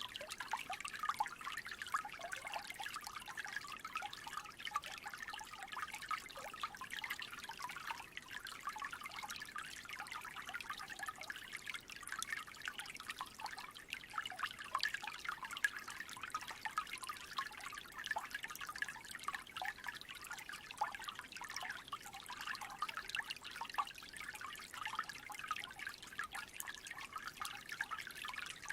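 Small creek trickling steadily: a dense, unbroken run of tiny gurgles and drips.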